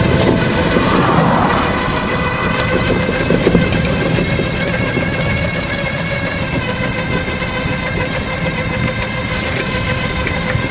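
Electric motor of a KMX Kart recumbent trike whining steadily at an even pitch while riding, over a noisy rumble of riding noise.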